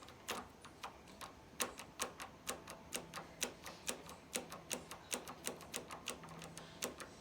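Gainsborough tri-lock deadbolt mechanism making a steady run of small sharp clicks, about three or four a second, as the bolt is worked. To its owner it sounds and feels like a clutch slipping inside the lock.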